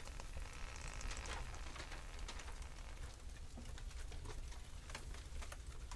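Faint steady low rumble with scattered light clicks and crackles.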